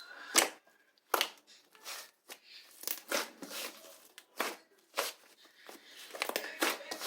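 Fluffy, whipped-cream-textured slime worked by hand, giving sharp, irregular pops and clicks about once or twice a second. From about six seconds in they crowd into a quicker run of crackles.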